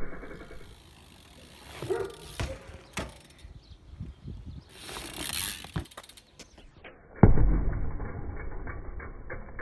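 BMX bike's freewheel hub ratcheting, with sharp clicks and knocks of the bike's parts and tyres on the pavement. About seven seconds in, a louder, duller sound cuts in suddenly and carries on.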